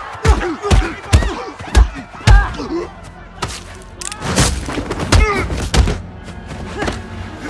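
Film fight sound effects: a fast run of punches, kicks and body thuds with grunts of effort, over a music score. The hits come thick in the first couple of seconds, ease briefly, then start again about four and a half seconds in.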